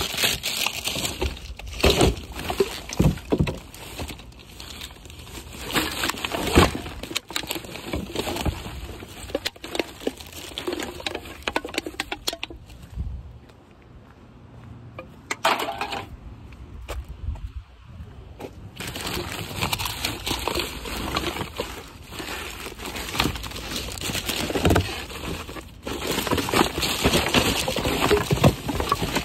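Plastic trash bags rustling and crinkling, with irregular knocks and clatter, as a gloved hand rummages through a plastic wheelie bin. The sound eases off for a few seconds around the middle, then the rummaging starts again.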